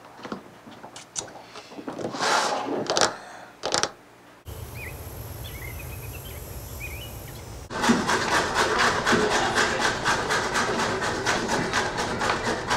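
A few scattered knocks and steps, then after a cut a few seconds of open-air ambience with small birds chirping. From about eight seconds in, a kitchen knife chops rapidly and evenly on a wooden cutting board.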